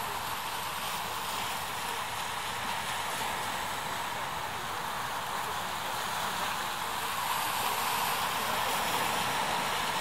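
Steady outdoor background noise: an even hiss with no distinct events, swelling slightly in the second half.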